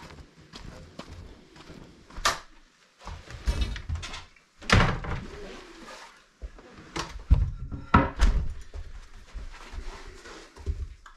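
A series of separate wooden thunks and knocks with footsteps: a door being handled and a wooden board carried in and set down on the floor, the loudest knocks about two-thirds of the way through.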